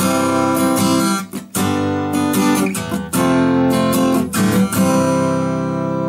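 Seagull S6 Original acoustic guitar with Elixir Nanoweb light strings, strummed in chords with a white standard-shape Tusq pick, the bright-tone one. The strums ring on with short breaks about one and a half and three seconds in, at the chord changes.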